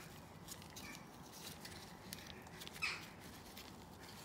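Faint rustling and small plastic clicks from a nitrile-gloved hand pressing the downstream O2 sensor's wiring into its retaining clips under the car, with one slightly louder scrape about three seconds in.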